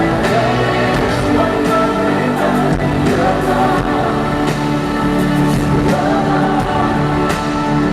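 Live pop song performance: music with singing over sustained held chords.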